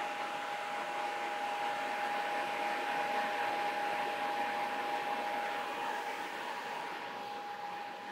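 Sunnen HBS-2100 cylinder head resurfacer running, a steady machine whir with a constant high whine on top, set up to mill flat a warped cast iron 6.7L Cummins head.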